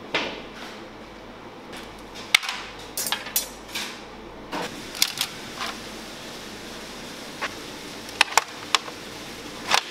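Kitchen clatter: about a dozen irregular sharp knocks and clinks of utensils and cookware, some in quick pairs, over a steady background hum.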